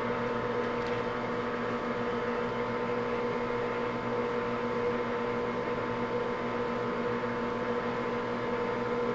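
Grizzly G4003 gearhead lathe running, a constant steady hum, between passes while cutting a thread.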